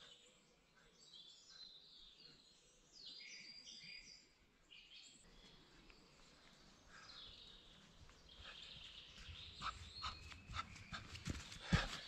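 Small birds chirping and singing for the first few seconds, then footsteps of boots running over soft mossy ground, growing louder and closer near the end.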